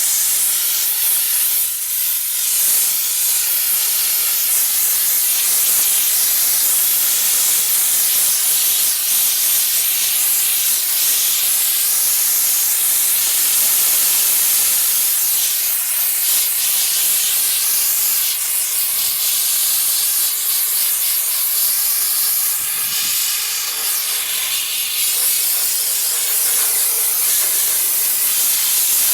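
Diesel-fired steam car washer jetting steam with a steady, loud hiss.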